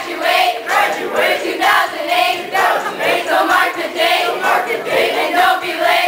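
A group of young voices chanting a rap in unison, pulsing in a steady rhythm about twice a second.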